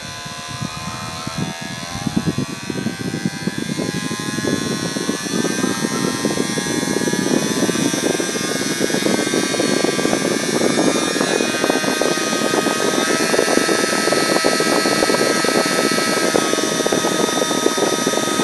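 Tiny RC-helicopter motor driving a 3D-printed mini turbine impeller on 3 volts, spinning up with a rising whine over the first several seconds, then running steadily at high speed. Along with the whine comes a rushing wind noise from the air being moved through the housing.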